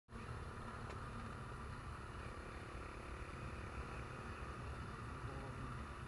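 Motorcycle running steadily while riding, with faint engine sound under road and wind noise.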